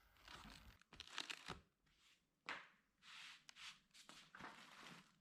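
Faint, scattered rustling and crinkling of packaging as the boxed stove is handled, in short bursts of a second or less.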